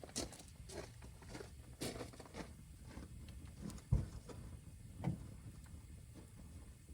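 Campfire crackling, with scattered irregular snaps and clicks and two dull thumps, the louder about four seconds in and the other a second later.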